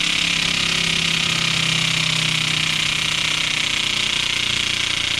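DeWalt DCF899 18 V cordless impact wrench hammering continuously on a strut bolt without the bolt coming undone.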